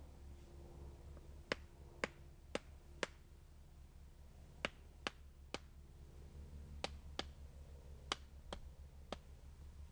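Firewood being chopped: about a dozen sharp wooden knocks in short runs of three to five, roughly two a second.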